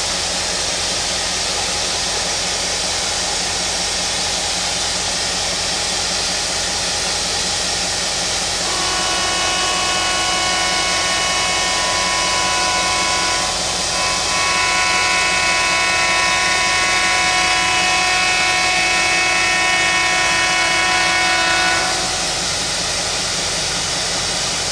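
A standing HG/S class steam locomotive hisses steadily. About nine seconds in, a train horn sounds one long, many-toned chord, broken briefly a few seconds in and held for about thirteen seconds in all before it cuts off.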